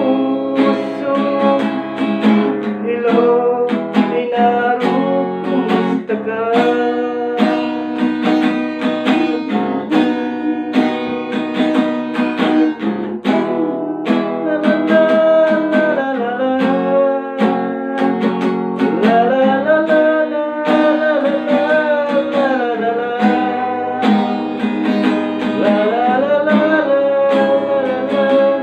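Acoustic guitar strummed in a steady rhythm, with a man singing along; the voice stands out most in the second half.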